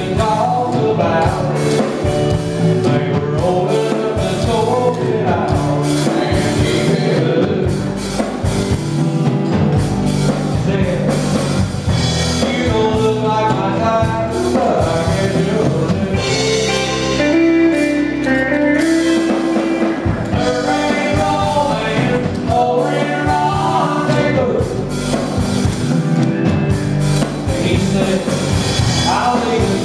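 Live band playing country-rock: a man sings lead into a microphone over strummed acoustic guitar, electric bass guitar and drum kit.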